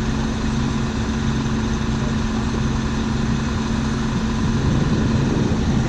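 Combine harvester running steadily: a constant engine hum with a low throb pulsing about twice a second.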